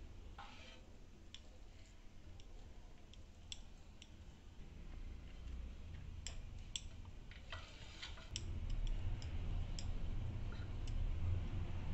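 Scattered light clicks and clinks of a steel spoon against a frying pan as vegetable stuffing is scooped and pressed into hollowed green bell peppers, with a low hum that gets louder about eight seconds in.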